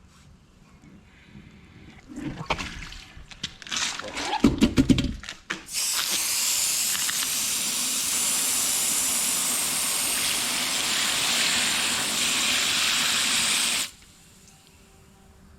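Water sprayed in a steady hiss onto a tire for about eight seconds, cutting off suddenly, as it is wetted to find an air leak by its bubbles. Before the spray there are a few seconds of knocking and clatter as the wheel is handled.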